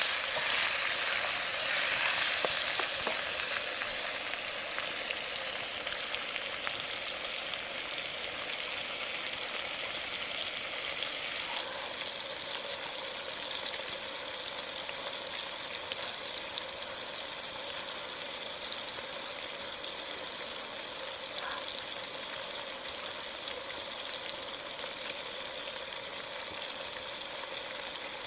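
Pork, mushrooms and mixed vegetables frying in a wok: a steady sizzling hiss, with chopsticks stirring and ticking against the pan in the first few seconds.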